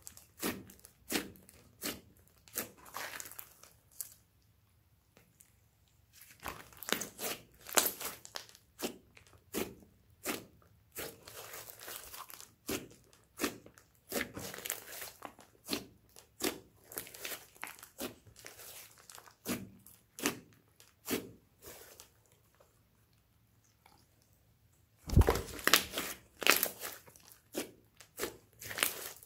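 Hands kneading and pressing a large lump of thick pink slime, making a run of short sticky pops and crackles. There are two brief pauses, and a louder cluster of pops comes near the end.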